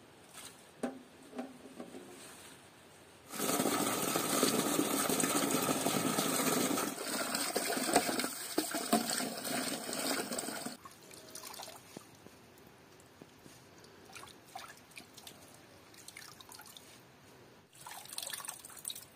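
Water running from a tap into a metal pot of leafy greens for about seven seconds, starting a few seconds in and cutting off sharply. Afterwards come soft splashes and drips as the greens are swished in the water, and near the end a short splash as a handful is lifted out dripping.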